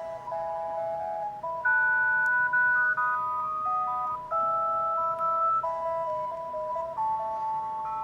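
Panasonic GD75 mobile phone playing a ringtone: an electronic melody of beep-like notes, two or three sounding together, stepping from note to note every fraction of a second.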